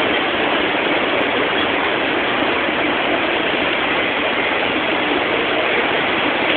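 Floodwater rushing and churning across a street, a steady, even rush of water.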